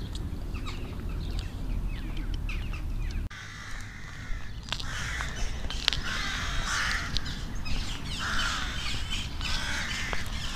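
Crows cawing repeatedly among other birds' chirps. A low wind rumble on the microphone cuts off abruptly about three seconds in.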